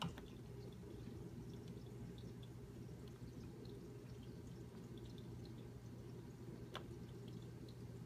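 Dishwasher running in its wash cycle: a steady low hum with faint water trickling and dripping inside. A sharp click comes at the start and another near the end, from its control-panel buttons being pressed.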